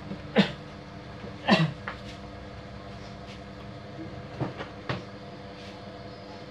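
Sharp plastic clicks and knocks from hands working a spacer roller collar onto the shaft of a Konica Minolta Bizhub copier roller unit: a handful of clicks, the loudest about a second and a half in, and two more near the end, over a steady hum.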